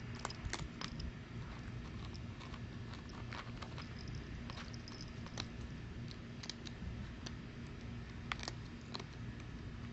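Cat eating from a food bowl: small irregular crunching clicks, a few a second at times.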